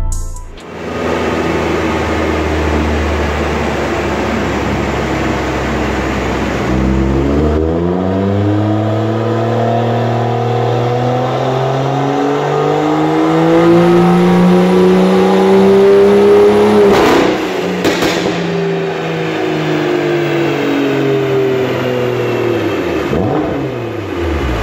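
BMW M2's N55 turbocharged straight-six on a chassis dyno. It runs steadily for several seconds, then makes a full-throttle pull whose note climbs for about ten seconds until the run is cut off sharply with a couple of cracks, after which the engine and rollers wind down with a falling note. The pull is aborted because the engine runs out of fuel on its stock fuel pumps with the big turbo.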